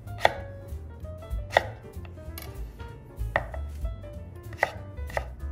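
Kitchen knife chopping cucumber on a wooden cutting board: about five sharp knife strikes against the board at uneven intervals.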